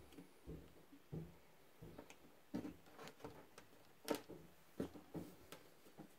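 Faint handling noises: light clicks and taps of a wooden clothespin, wires and clip against a plastic jar's rim as an electrolysis bath is wired up, with the sharpest tap about four seconds in.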